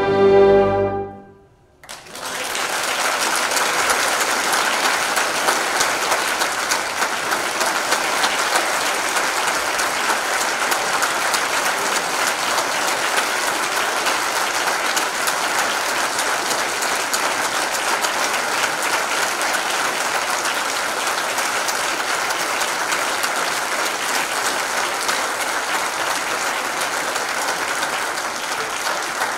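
A symphonic wind band's final held chord cuts off about a second in, and after a brief pause the audience applauds steadily.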